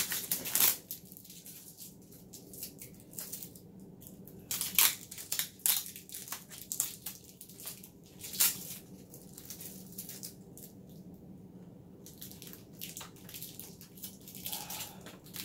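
Unpacking and handling noises: packing material crinkling and rustling, with irregular clicks and knocks of plastic vacuum parts being moved. The loudest crackles come near the start and about five seconds in.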